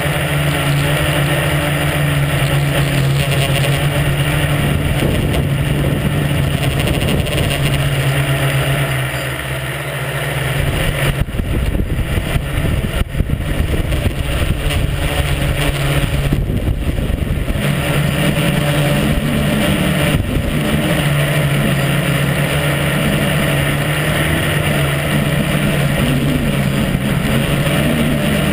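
A tricopter's three electric motors and propellers whine steadily, heard from the camera on board the craft. The pitch dips about ten seconds in, turns rougher and noisier for several seconds, then wavers up and down with the throttle as the craft comes down low.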